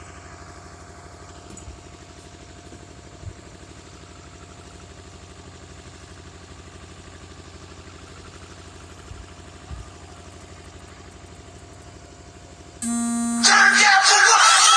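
Steady low engine hum, as of a motor idling. Near the end, a short beeping tone breaks in, followed by about two seconds of loud rushing noise.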